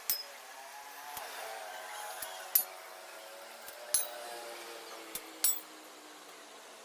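Sharp metallic clinks of steel tools and parts being handled while a motorcycle crankshaft is assembled, about half a dozen spread a second or so apart, each ringing briefly.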